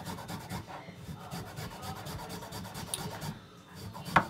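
Fresh ginger being grated on a metal rasp-style grater in quick, repeated scraping strokes. A sharp knock comes near the end.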